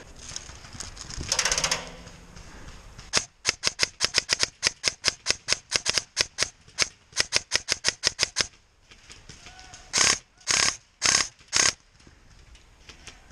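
Running footsteps thudding and crunching through dry leaf litter, about six quick steps a second for several seconds. Near the end come four longer scuffs.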